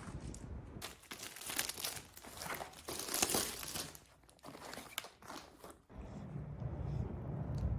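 Crinkling and rustling for about five seconds, followed about six seconds in by a low, steady rumble.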